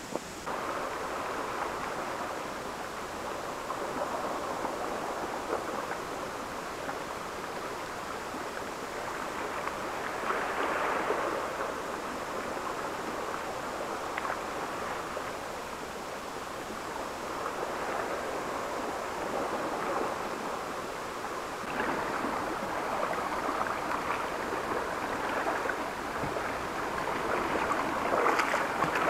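Seawater washing and trickling over and between shore rocks in shallow pools: a steady rushing that swells a few times and grows louder near the end.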